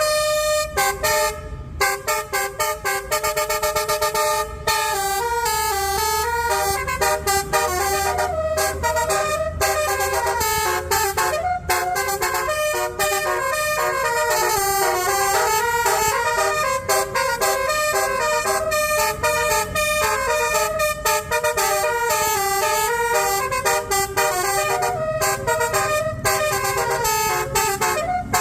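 Telolet basuri multi-tone horn playing a melody: several horn tones step up and down in pitch without a break.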